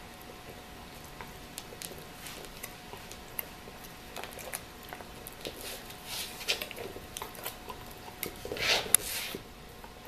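Dog gnawing a white bone-shaped chew toy: irregular clicks and scrapes of teeth on the toy, busier in the second half, with the loudest burst of chewing near the end.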